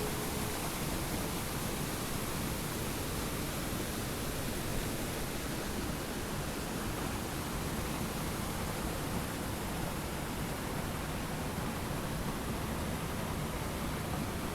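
Steady rushing noise, even across low and high pitches, with no distinct events.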